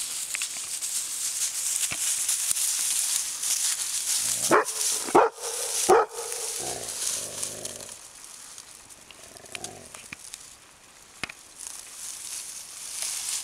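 A dog barks three times in quick succession, about halfway in, with a few fainter calls after. Under the barks is a steady rustle of dry grass and brush that fades after the barking.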